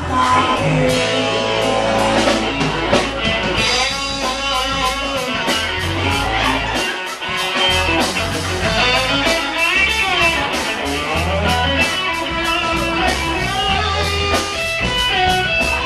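Live band playing blues-rock in a bar: electric guitar over bass and drums with a steady beat.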